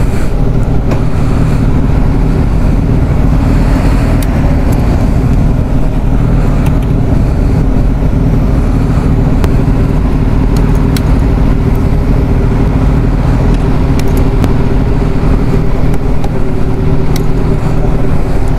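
A motorcycle engine idling steadily close by, with a few light clicks over it.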